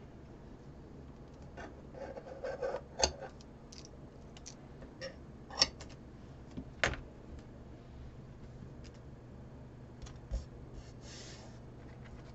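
Light handling sounds of tape being laid and pressed down on a ceramic tile: scattered soft clicks, taps and rustles. The sharpest taps come about three, five and a half and seven seconds in, and there is a short rustle near the end.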